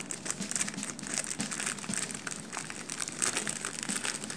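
Clear plastic bag crinkling as hands handle and work it open, a rapid, irregular run of small crackles.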